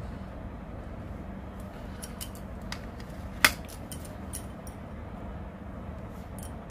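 Small clicks and taps of makeup items being handled, with one sharp click about halfway through, over a steady low hum.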